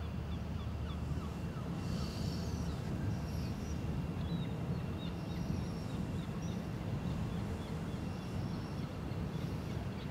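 Birds chirping repeatedly in short, high calls over a steady low rumble.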